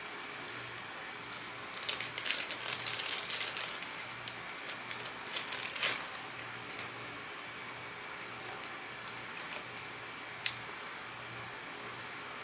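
Handling noise from a camera body being fiddled with by hand: two spells of rustling and light clicks, then a single sharp click near the end, over a steady room hum.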